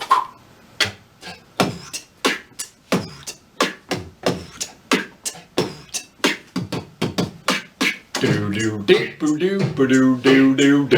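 Mouth-made vocal percussion: a person beatboxing a steady beat of sharp clicks and hits, about three a second. About eight seconds in, a hummed, stepped bass-like vocal line joins the beat.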